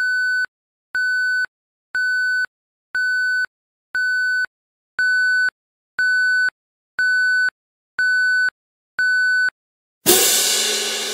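Countdown-timer sound effect: ten short, identical high-pitched beeps, one a second. Right after the last beep a cymbal crash rings out and fades over about two seconds.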